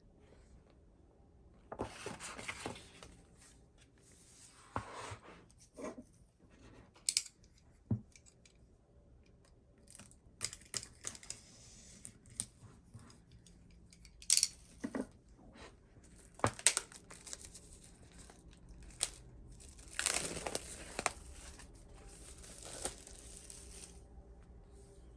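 Album packaging being torn open and crinkled in several bursts, with sharp clicks and taps as it is handled.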